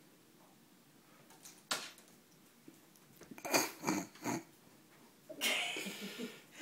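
A single sharp knock, then a person's stifled laughter: three short breathy chuckles and a longer breathy laugh near the end.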